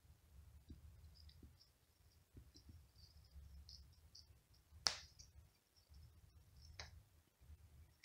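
Near-silent scuffling as a cat grabs and bites a cloth toy mouse on a blanket, with faint scattered ticks and a sharper click about five seconds in and another near seven seconds.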